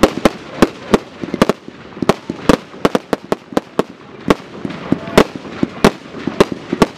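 Professional fireworks going off in rapid succession: loud, sharp bangs, about two to three a second at an irregular pace, as shots fire and burst in the sky.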